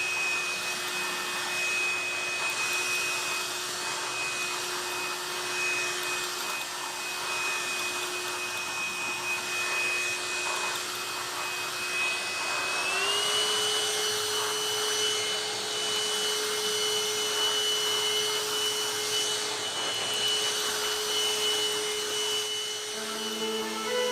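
MOOSOO M cordless stick vacuum running with a steady motor whine over the hiss of its airflow. About halfway through, the whine glides up to a higher pitch as the motor speeds up and then holds steady.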